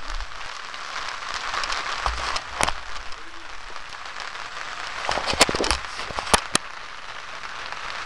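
Steady rain falling on surfaces, a continuous hiss with sharp drip clicks scattered through it, several close together past the middle.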